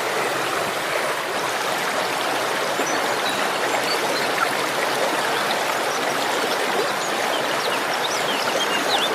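Steady rushing of a flowing stream, with a few faint, short high chirps over it.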